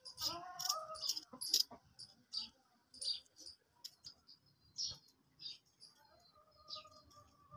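Small knife peeling and cutting potatoes by hand: short, irregular scraping strokes, about one or two a second. A brief pitched whine sounds near the start.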